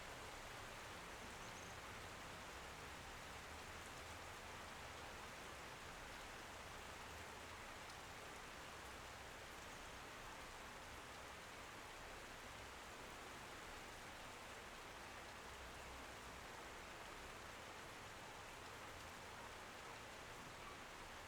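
Steady rain falling, a faint even hiss of drops that does not change.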